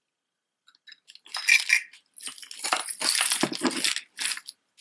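Jewelry clinking and clattering as a tangled pile of metal bangles, beaded necklaces and silver-tone pieces is rummaged through by hand, starting about a second in as a run of quick clicks and jingles.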